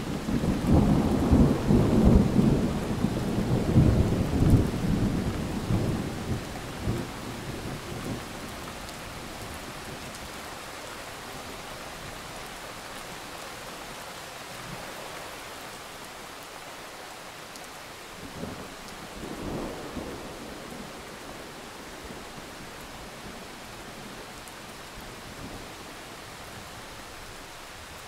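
Thunderstorm: a long rolling peal of thunder over steady rain for the first several seconds, then steady rain with one short low rumble of thunder about two-thirds of the way through.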